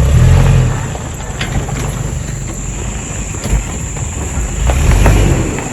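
A vehicle's low rumble, swelling louder twice, about the first second and again near the end.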